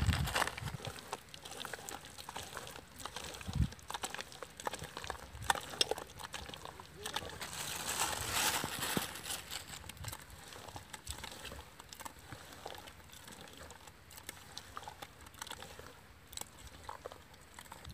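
A hand squishing and kneading mashed ripe banana with jaggery in a steel bowl: soft wet squelches with many small clicks, a little louder about halfway through.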